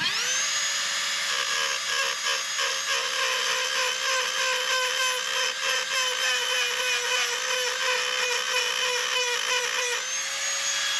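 Dremel rotary tool with a grinding wheel spinning up to a steady high whine and grinding paint off to bare metal on a truck door pillar. Its pitch sags and wavers under load, rises again near the end as the wheel comes off the metal, and then it stops.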